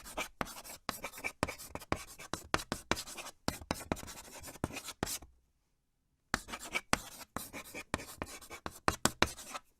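Fire crackling and popping: a dense run of sharp crackles that breaks off for about a second just past the middle, then starts again.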